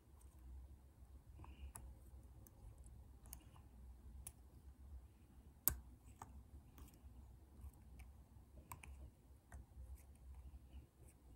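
Faint, scattered metallic clicks of a lock pick and tension wrench working the pins of a pin-tumbler lock under light tension, with one sharper click about six seconds in.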